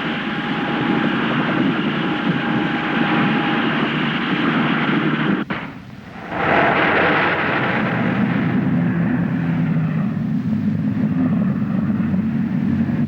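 Road traffic noise: a steady rushing of vehicles on a highway. It drops out abruptly for about a second a little before halfway, then comes straight back.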